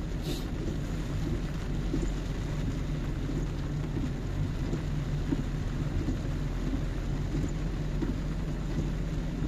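Car engine pulling steadily uphill, with tyre noise on a wet road and rain on the car, heard from inside the cabin.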